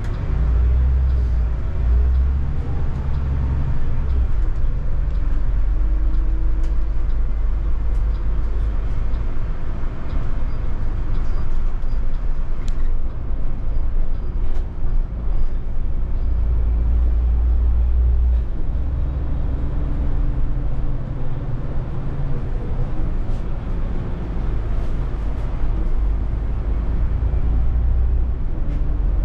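Interior of a city bus on the move: a steady low rumble of engine and road, with a faint hum that comes and goes and scattered clicks and rattles from the cabin.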